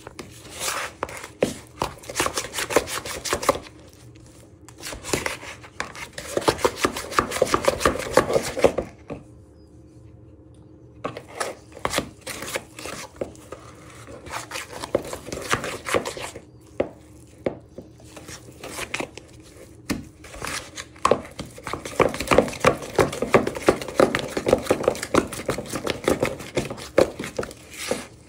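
Wooden spoon beating margarine and sugar in a mixing bowl, creaming them: rapid, repeated knocks and scrapes of the spoon against the bowl. The strokes pause briefly a few times, most clearly about a third of the way in.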